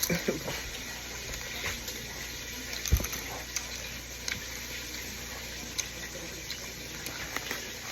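Chicken deep-frying in hot oil: a steady sizzle with scattered small pops and crackles. A single dull thump about three seconds in is the loudest sound.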